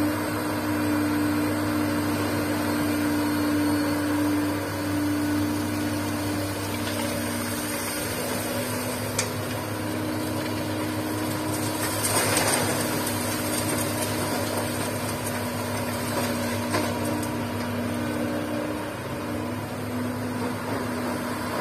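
Komatsu PC200-6 excavator's diesel engine and hydraulics running steadily under work, a low hum with tones that fade and return as the arm swings. About twelve seconds in, a brief rush as a bucketload of stone and gravel is dropped into the steel bed of the dump truck.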